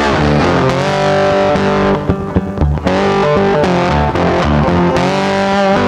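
Background music led by a distorted electric guitar playing held notes that bend in pitch, with a short drop in loudness about two seconds in.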